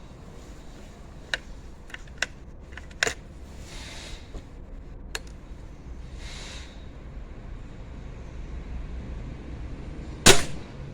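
Remington Express XP .22 break-barrel spring air rifle fired once, a sharp report near the end. Before it come a few small sharp clicks.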